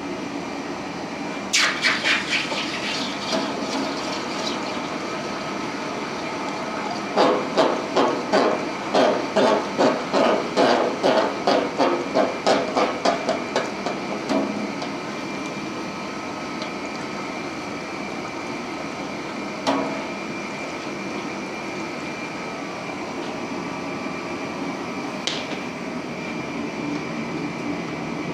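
Metal clanking over a steady workshop hum: one sharp ringing clank, then a rhythmic run of about fourteen clanks, roughly two a second, lasting several seconds. A couple of single clicks follow.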